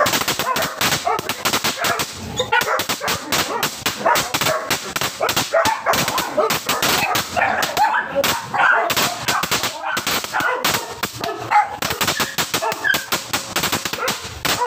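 Crackling fountain firework (a 120-second crackling cake in a metal can) burning on the ground, giving a dense, fast run of sharp crackling pops.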